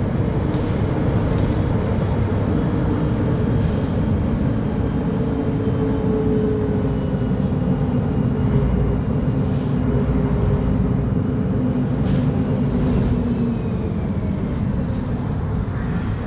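Mercedes-Benz O500UDA bi-articulated bus's diesel engine running steadily, a continuous low drone.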